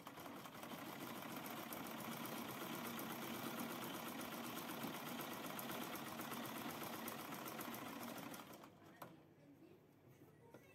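Vintage manual sewing machine stitching cloth at a fast, even rhythm, which fades and stops about eight and a half seconds in. A single click follows shortly after.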